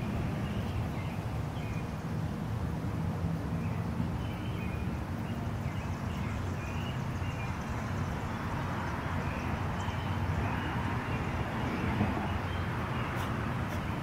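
Steady outdoor background rumble with a few faint, short, high chirps; no distinct sound from the playing dogs stands out.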